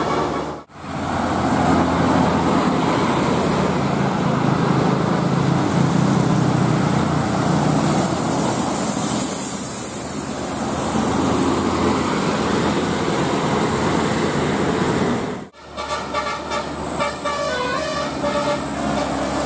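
Loud, steady road noise of a large bus driving by. About 16 seconds in, after a sudden break, a bus telolet horn (a set of musical air horns) plays a melody of quick stepped tones.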